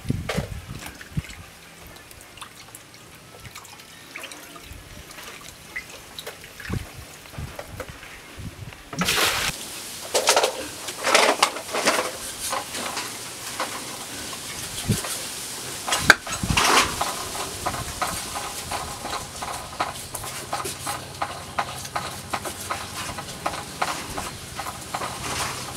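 Raw pork being rubbed and rinsed by hand in a plastic basin of water, with water sloshing and dripping. About nine seconds in this gives way to louder rustling and scraping as a cleaver cuts pork on a wooden chopping board, with one sharp knock of the blade on the board.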